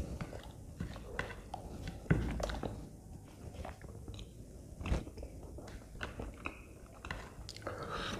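Close-up chewing and biting of soft aloo paratha, with wet mouth clicks and smacks throughout. Two louder knocks come about two seconds in and again near five seconds.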